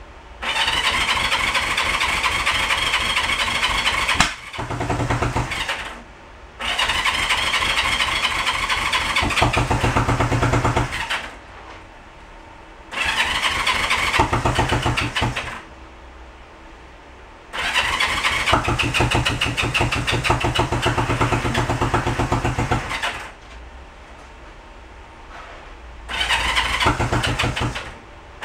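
1971 Honda CB350 parallel-twin engine being cranked in about six start attempts of a few seconds each, with short pauses between, after fuel has been fed through the carburettors.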